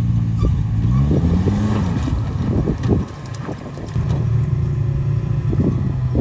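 Vintage flat-fender Jeep engine running on the trail. Its pitch rises briefly about a second in and drops away around three seconds in before settling back, with several sharp knocks and clatters along the way.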